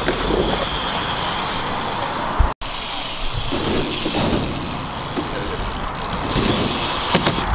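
BMX bikes riding skatepark ramps: tyres rolling on asphalt under a steady outdoor noise rumble. A single sharp thud comes about two and a half seconds in, then the sound cuts out for a moment.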